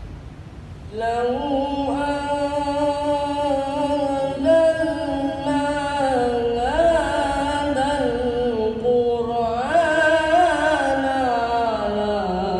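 A young student's voice reciting the Qur'an in the melodic tilawah style, beginning about a second in: long held, ornamented notes with slow swoops in pitch, sliding lower toward the end.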